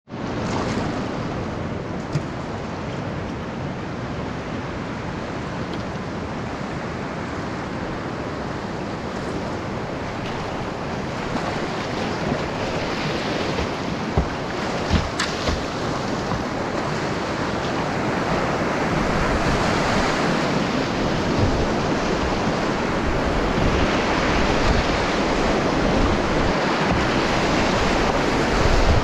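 Rushing river water heard from a kayak, a steady rush that grows louder as the boat moves from moving flat water into whitewater rapids. A few short sharp knocks sound about halfway through.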